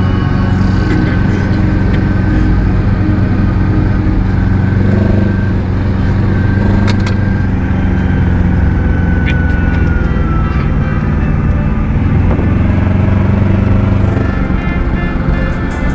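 Moped car (microcar) engine running at a steady pitch, a continuous drone with a couple of sharp clicks partway through.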